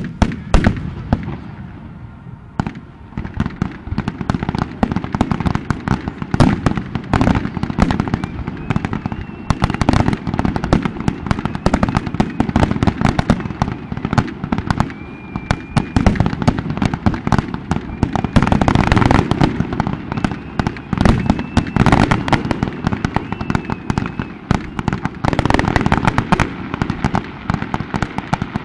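Fireworks finale: a loud burst right at the start, then a dense, continuous barrage of rapid bangs and crackling, with a few brief whistles over it.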